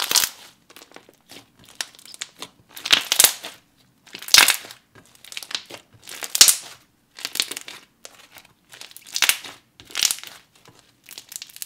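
Thick, glossy slime being squeezed and kneaded by hand, giving off sticky crackling squelches in repeated bursts, roughly one a second.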